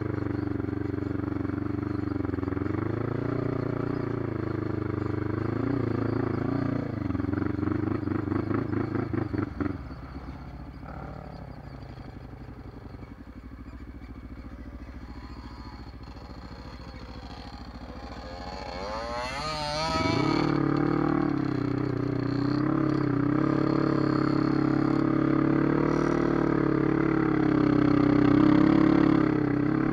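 Quad engine heard from onboard, running on throttle, then backing off to a quieter note about ten seconds in. About twenty seconds in it revs sharply up and then runs hard and steady.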